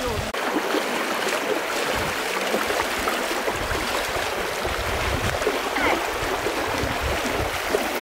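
Shallow stony stream rushing steadily, with the splashing of feet wading and running through the water.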